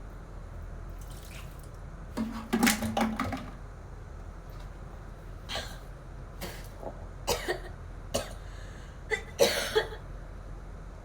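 A girl coughing in short sharp bursts: a fit of several coughs about two seconds in, single coughs scattered through the middle, and another quick run of coughs near the end.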